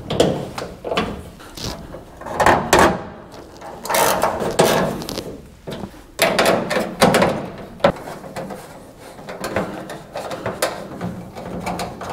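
Screws being driven home with a hand screwdriver to tighten a front lip spoiler: a run of creaking, rasping turns, about one every second or two, with a sharp click about eight seconds in.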